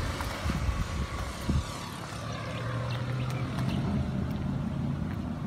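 Wind buffeting the phone's microphone in low rumbles, with a couple of gusty bumps in the first second and a half. A steady engine hum from a passing motor vehicle or aircraft comes in about halfway through and carries on.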